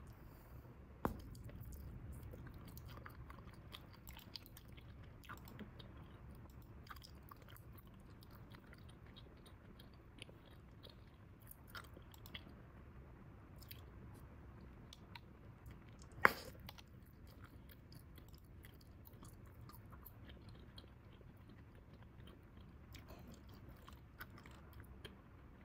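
Bubble gum being chewed quietly, with faint irregular wet clicks of the gum. A sharp pop about a second in as a blown bubble bursts, and a louder single sharp snap about two-thirds of the way through.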